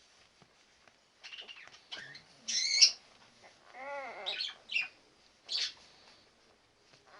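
Ten-day-old Labrador retriever puppies squeaking and whimpering in a run of short, high calls, the loudest a shrill squeal about two and a half seconds in.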